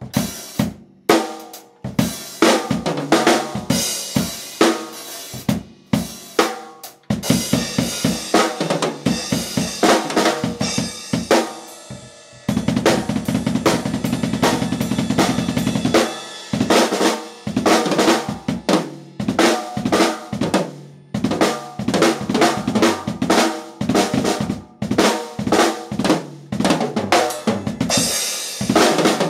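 Drum kit played hard and fast: snare, bass drum and cymbals in quick, dense strikes. About halfway through there is a few-second stretch of steady, continuous sound, such as a roll, before the hits resume.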